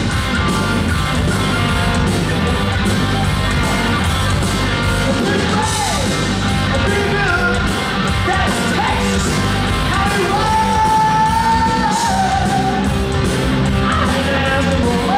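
Rock music with a singing voice and guitar over a steady bass and drum beat.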